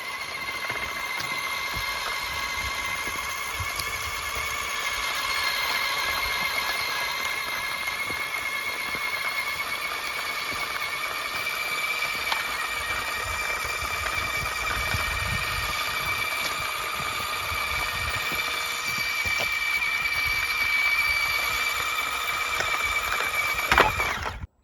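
High-pitched steady whine of a radio-controlled model's small electric motor and gears running, drifting slightly in pitch. It ends with a click and cuts off suddenly near the end.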